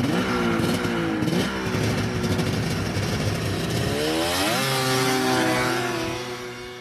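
1995 Polaris Indy Storm 800 snowmobile's three-cylinder two-stroke engine revving as it pulls away, rising sharply in pitch about four seconds in as it accelerates, then fading as the sled draws off into the distance near the end.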